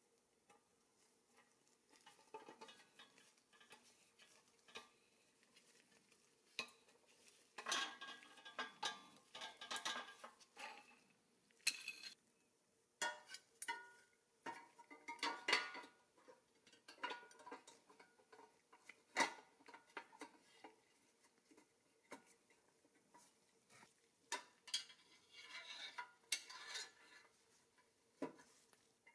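Painted pressed-steel toy truck parts clinking, tapping and rattling against each other as they are handled and fitted together, in irregular clusters of light metallic clanks.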